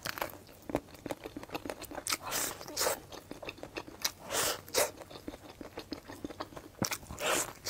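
A person biting and chewing cooked waxy (glutinous) corn on the cob, with irregular soft crunches of kernels coming off the cob and moist mouth sounds.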